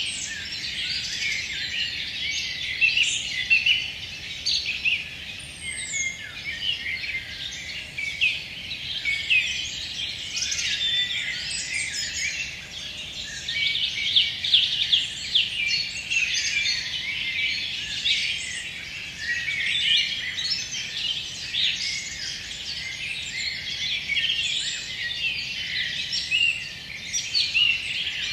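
Evening chorus of many songbirds singing at once: a dense, unbroken tangle of overlapping high chirps and trills.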